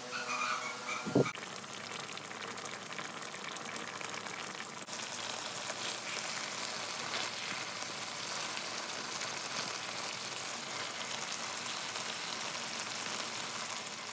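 Chicken pieces, green papaya and malunggay leaves cooking in coconut milk in a wok, making a steady sizzling hiss that crackles finely for the first few seconds. A brief low knock sounds about a second in.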